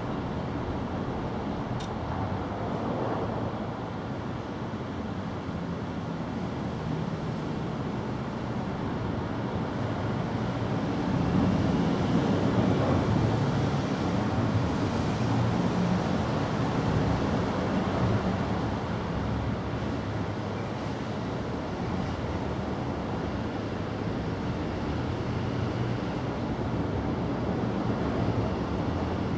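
A steady low outdoor rumble, like background traffic noise, that swells louder for several seconds in the middle.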